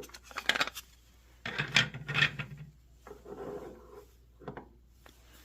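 Icon G2 1/4-inch ratchets being handled and freed from their packaging clips: a few short bursts of rasping and rubbing, the loudest in the first half, then softer rubbing and a click.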